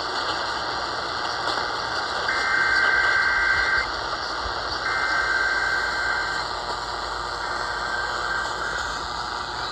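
Weather radio receiver hissing with static, broken by the buzzy two-tone data bursts of an Emergency Alert System (SAME) alert header: two loud bursts of about a second and a half, starting about two and five seconds in, and a fainter third one near the end.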